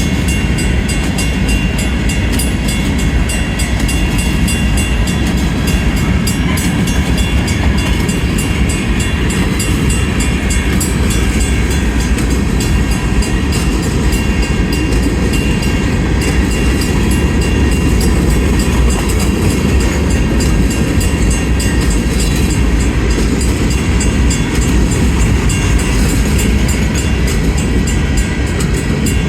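Covered grain hopper cars of a Union Pacific freight train rolling past at low speed, a steady rumble of wheels on rail.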